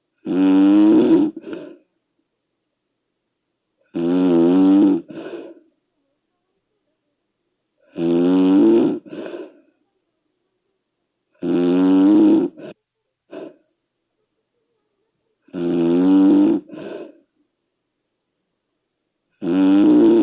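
Very loud snoring of a sleeping person: six snores about four seconds apart, each a pitched snore of about a second followed by one or two short, weaker after-sounds.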